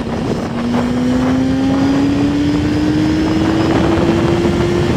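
Yamaha R6 sport bike's inline-four engine pulling steadily under gentle acceleration, its note rising slowly and evenly in pitch, over a steady rush of wind and road noise.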